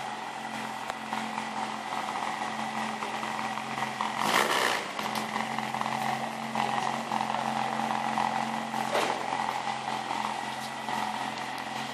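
Toyota Corolla E80 rally car's 4A-GE engine idling steadily through its sport exhaust, with one short rev about four seconds in.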